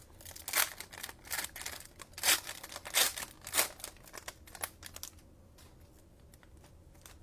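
Plastic cellophane wrapping of trading-card cello packs being crinkled and torn open, a quick run of sharp crackles for about five seconds, then it goes quiet.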